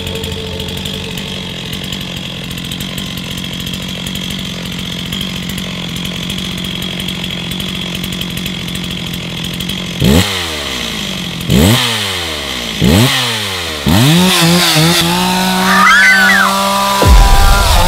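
A chainsaw idling steadily, then revved in four quick blips about a second and a half apart, each falling away in pitch, and from about two-thirds in held at high revs, louder, with a wavering pitch.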